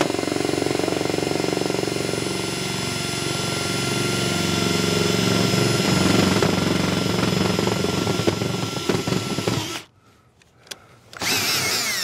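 Cordless drill whining as it drives a screw into a camper's fender skirt. It runs steadily for nearly ten seconds and stops abruptly, then runs again briefly near the end.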